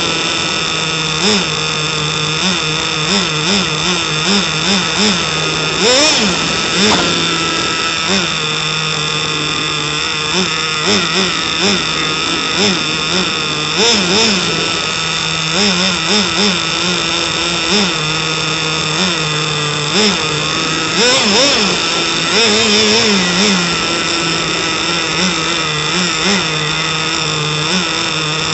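HSP nitro RC car's small two-stroke glow engine running, idling with short, quick throttle blips every second or so as the car drives about. A steady high whine runs underneath.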